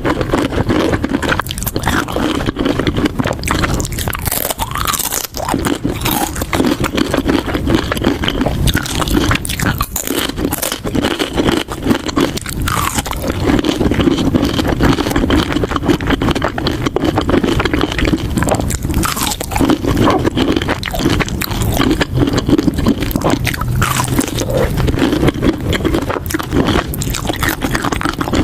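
Close-miked eating: continuous chewing and biting, with many small wet clicks and crackles.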